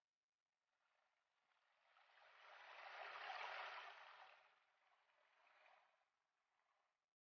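Faint rushing and splashing of a small forest stream falling over rocks at a little cascade. It swells to its loudest about halfway through and fades out near the end.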